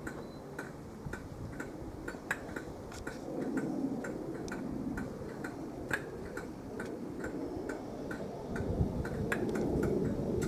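Class 37 diesel-electric locomotive's English Electric V12 diesel idling: a steady low rumble with a regular ticking clatter about two or three times a second.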